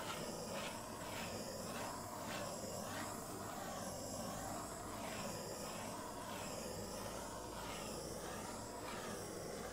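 Handheld butane torch running with a steady hiss as it is passed over wet acrylic paint to pop air bubbles.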